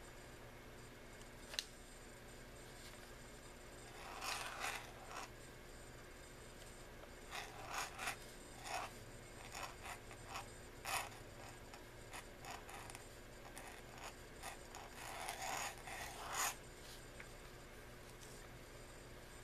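Pointed dip-pen nib scratching on paper in groups of short strokes, with pauses between them, as a name is written in calligraphy.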